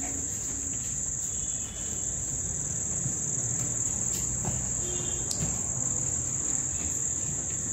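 Crickets trilling steadily in one high, continuous note.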